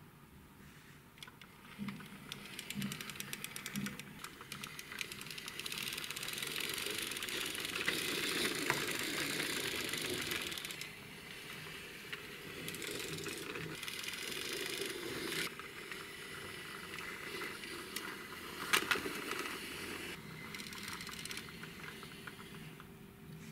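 Toy car-carrier truck pushed by hand across a wooden floor: its plastic wheels rolling and rattling, with scattered clicks and one sharper knock about three-quarters of the way through.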